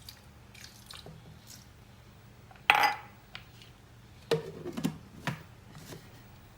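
Kitchenware being handled: a sharp clink near the middle, then a short cluster of knocks with a little ringing and one more knock, as containers are set down and moved.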